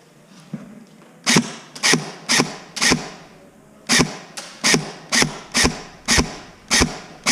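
Airsoft gun fired in single shots: about eleven sharp cracks at an uneven pace of roughly two a second, each with a short echo.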